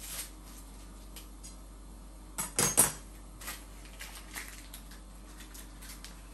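Hard parts clinking and knocking as they are handled, with a quick cluster of louder clacks about two and a half seconds in and scattered lighter clicks.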